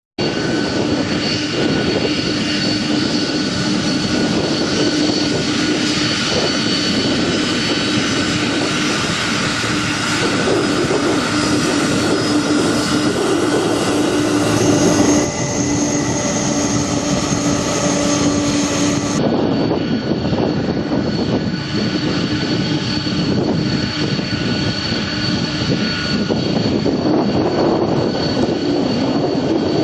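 Boeing 747-400F freighter's four jet engines running at high power during its departure: a loud, steady rush of noise laced with several high whining tones. The sound changes abruptly twice in the second half.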